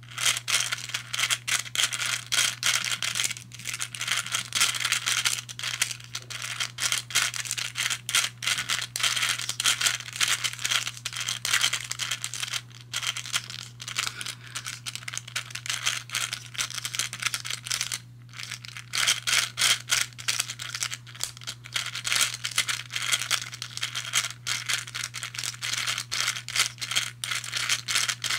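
Hungarian Rings puzzle being scrambled: its balls rattle and click continuously in their tracks as the two intersecting rings are turned, with a few short pauses.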